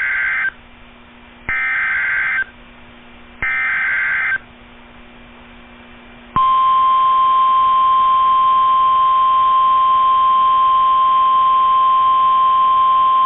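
Emergency Alert System SAME header: the tail of one screechy digital data burst, then two more bursts about a second long with short pauses between. About six seconds in, a single steady high alert tone starts and holds: the weather-radio 1050 Hz attention signal.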